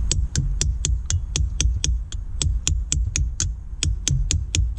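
Claw hammer tapping a steel pin punch in light, sharp metallic taps, about four a second in an even rhythm, to drive the retaining pin out of a shift lever.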